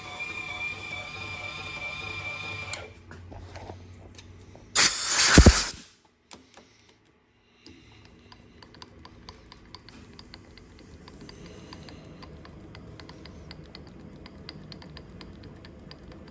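An electric shop machine's motor running with a steady whine, then shutting off about three seconds in. About five seconds in comes a loud, rushing burst lasting about a second. Later there are faint, scattered light clicks.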